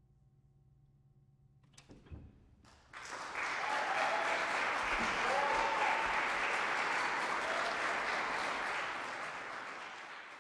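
The last piano tones die away, a couple of knocks come about two seconds in, then an audience applauds with a few whoops, the clapping fading near the end.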